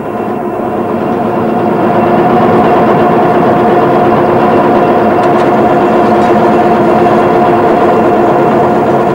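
Centre lathe running and turning a metal bar held between centres, the tool cutting and throwing off swarf: a steady machine whir with a cutting hiss, growing louder over the first couple of seconds and then holding steady.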